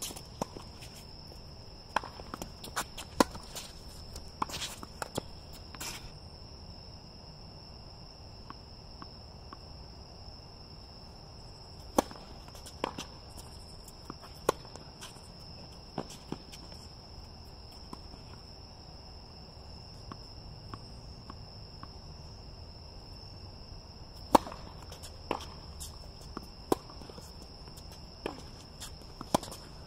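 Tennis rallies on an outdoor hard court: sharp pops of racket strikes and ball bounces in three bursts, with footsteps on the court between shots. Under them runs a steady high-pitched drone of night insects such as crickets.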